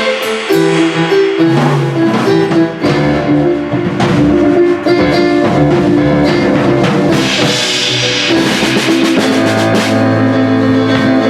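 Live jam of a keyboard and a large drum kit: sustained keyboard chords over a low bass line, with cymbal crashes and drum hits sitting back in the mix.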